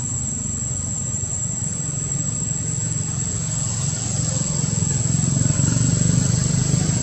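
A steady low engine drone that grows louder about four seconds in, with a thin high whine over it.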